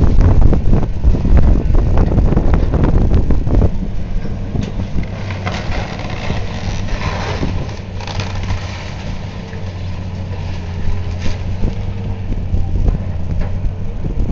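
Demolition machine's engine running steadily while it tears into the building, with crunching and clattering of debris. A loud rumbling clatter fills the first few seconds, then the engine hum stands out.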